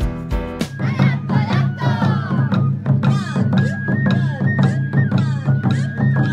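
Plucked-string background music cuts off about half a second in. It gives way to Japanese taiko drums beaten in a fast, dense rhythm, with a high held melody line over them that steps between a few notes.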